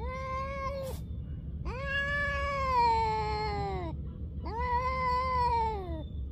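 Cats yowling in an aggressive standoff before a fight: three long, drawn-out yowls. The middle one is the longest, and each sags in pitch as it ends.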